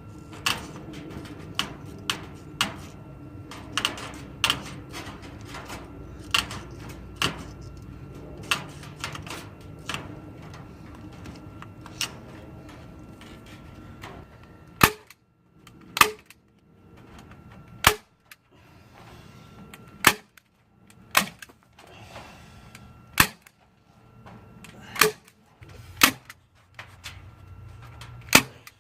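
Sharp single snaps of a fastening tool, roughly one a second and evenly spaced in the second half, as quarter-inch wire mesh is fixed to the rabbit hutch's wooden frame.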